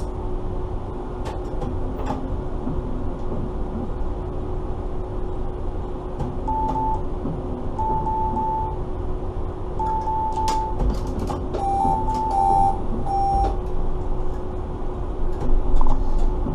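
Cab interior of a tram-train standing at a stop: a steady electrical hum over a low rumble, with scattered sharp clicks from rain and the sweeping windscreen wipers. From about a third of the way in, a series of short electronic beeps sounds, the later ones two-toned.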